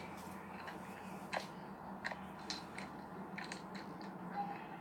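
Irregular small clicks and taps, the sharpest about a second and a half in, over a steady low hum.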